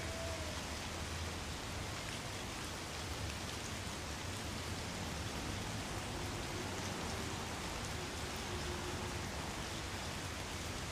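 Light rain falling steadily on trees and ground, with faint ticks of single drops over a steady hiss and a faint low hum underneath.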